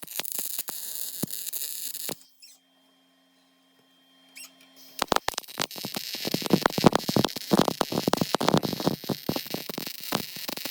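A welder crackling as it runs weld on car body sheet metal, stopping for about three seconds, then crackling again more loudly.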